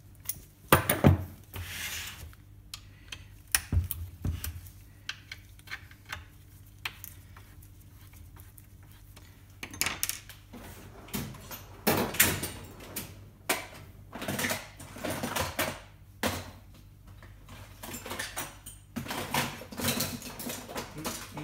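Irregular knocks, clunks and clatters of a passive monitor speaker cabinet and tools being handled on a workbench as the speaker is got ready to be opened. The loudest clunks come about a second in and again about twelve seconds in.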